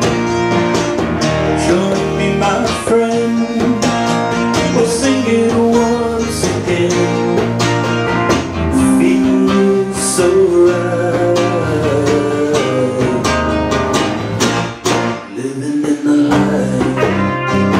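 A small band playing a song live: electric bass and lap steel guitar, with a man singing.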